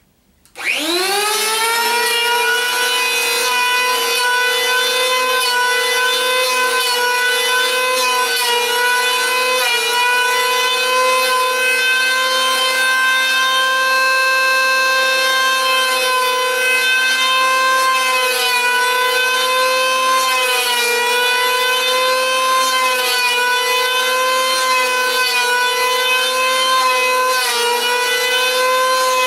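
Corded handheld power tool working a wooden block. Its electric motor spins up about half a second in, then runs steadily with a high whine whose pitch dips slightly now and then as it bites into the wood.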